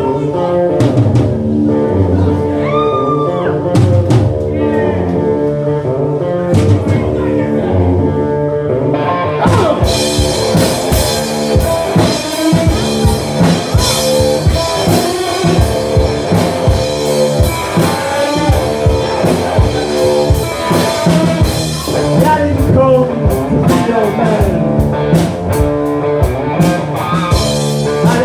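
Live band playing: sustained electric guitar chords open the song, and about nine seconds in the drum kit comes in and the full band plays on with a steady beat.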